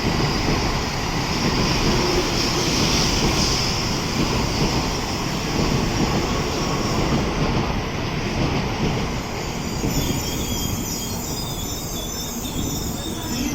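Tokaido Shinkansen train pulling out along the platform: a steady rumble and hiss of wheels and running gear, with thin high wheel-squeal tones coming in from about ten seconds in.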